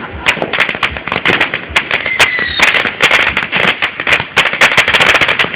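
Consumer fireworks crackling and popping in rapid, dense volleys, many sharp cracks a second, with a short whistle about two seconds in.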